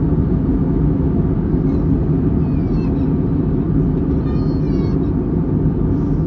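Steady low rumble of a passenger jet airliner's cabin noise in flight.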